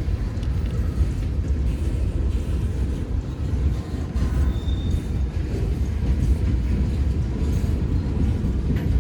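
Freight train cars rolling past at close range, a steady rumble of wheels on the rails, with one brief faint high squeal about halfway through.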